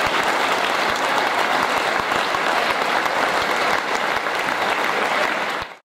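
Large audience applauding steadily after a speech closes; the sound cuts off suddenly near the end.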